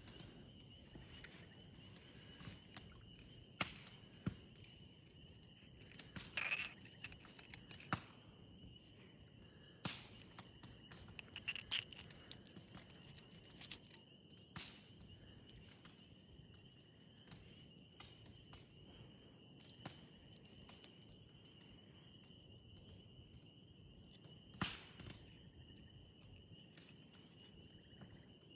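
A steady high-pitched insect trill, with scattered sharp clicks and knocks of handling on top, loudest a few seconds in and again near the end.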